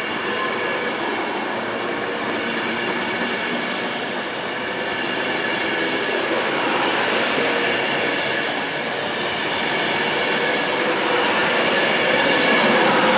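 Avanti West Coast Class 390 Pendolino electric train running past along the platform, with steady wheel-on-rail noise and a steady electric whine. It grows slowly louder toward the end.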